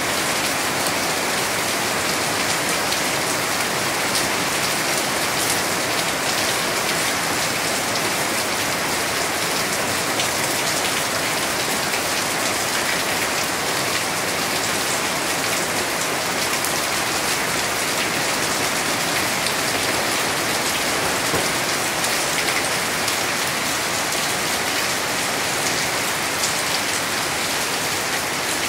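Steady rain falling on banana leaves, garden plants and wet paving: an even hiss with fine single drop hits.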